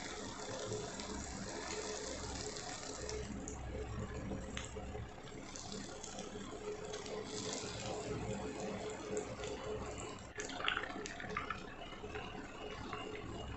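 Small balls of rice-and-urad-dal batter deep-frying in hot oil in a cast-iron kadai: the oil sizzles and bubbles steadily around the freshly added dough, with a few light clicks.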